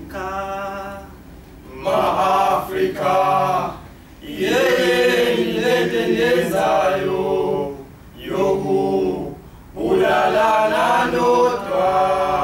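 Male voices singing isicathamiya a cappella, in phrases of one to three seconds with short breaks between them.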